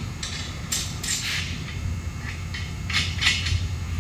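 Hand work on a steel machine frame: a few short metallic scrapes and clinks of bolts, washers and nuts being handled and fitted, clustered about a second in and again near the end, over a steady low hum.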